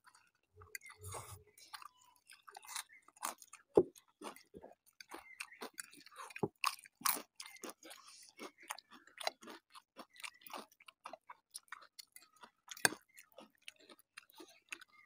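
People eating noodles close to the microphone: a run of short, irregular wet chewing clicks and mouth smacks, with two louder clicks about four seconds in and near the end.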